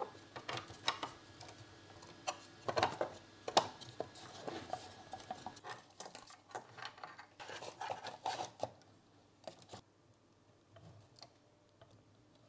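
Light clicks, taps and knocks of 3D-printed plastic parts and bundled wires being handled and fitted together. They thin out about nine seconds in to a few faint ticks.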